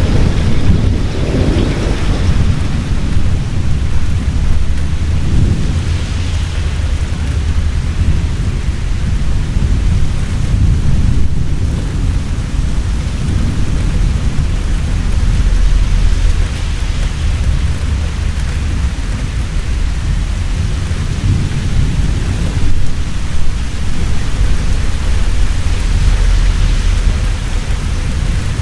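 Heavy rain pouring steadily, with deep rolling thunder rumbling underneath; the rumble swells about halfway through and again near the end.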